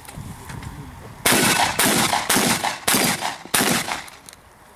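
Shotgun fired five times in quick succession, about half a second to two-thirds of a second apart, starting about a second in.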